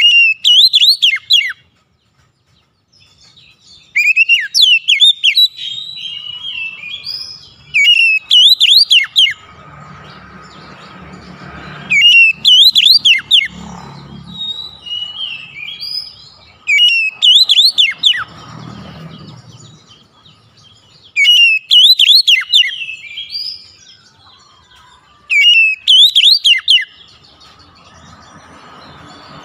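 Oriental magpie-robin singing: loud phrases of fast, sweeping whistles, each led in by lower warbling notes, repeated about every four seconds.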